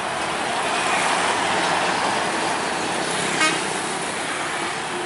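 A coach bus drives past close by: its engine and tyre noise swell over the first couple of seconds, then fade as it pulls away. A short horn toot sounds about three and a half seconds in.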